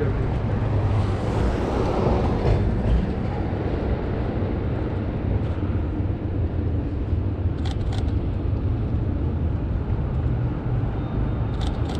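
City street traffic: a steady low rumble of vehicles, with one swelling as it passes about two seconds in. A few short clicks come near the end.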